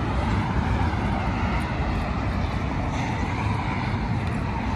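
Steady rumble of road traffic from the multi-lane road alongside, with wind buffeting the microphone.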